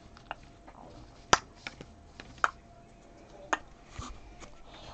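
Sharp clicks and snaps of stiff chrome trading cards being handled and flipped by hand, a string of separate clicks with the loudest about a second and a half in.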